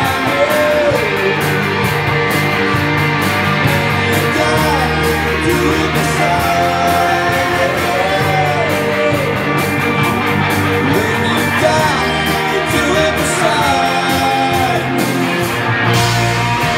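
Live rock band playing loudly: electric guitars and drums, with a lead line of bending, gliding notes over the steady band.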